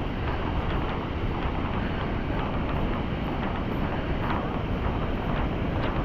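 Steady rush of falling water from a waterfall, a dense even noise with no breaks.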